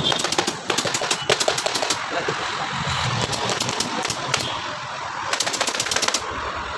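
Pneumatic upholstery staple gun firing staples in rapid runs into a sofa's wooden frame: one run about a second in and another near the end.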